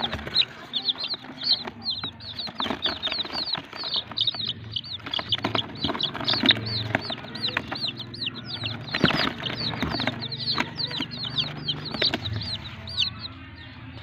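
A box of young chicks peeping nonstop: many short, high chirps that each fall in pitch, overlapping one another. A few sharp knocks sound among them.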